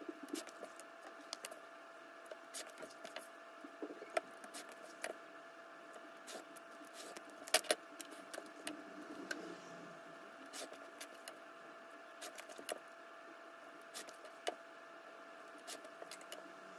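Irregular small clicks and taps of leather-working hand tools and leather being handled on a workbench, with a sharper pair of clicks about halfway through, over a steady faint hum.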